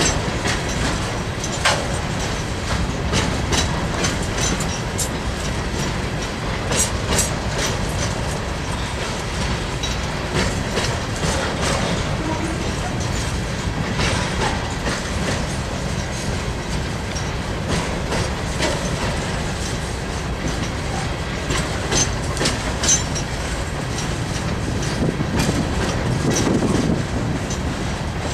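Freight train of hopper cars rolling past at steady speed: a constant rumble of steel wheels on rail with a running clickety-clack and many sharp clanks as the wheels cross rail joints.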